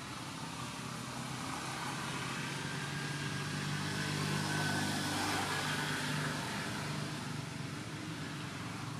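A motor vehicle passing by: its engine and tyre noise grow louder to a peak about halfway through, then fade.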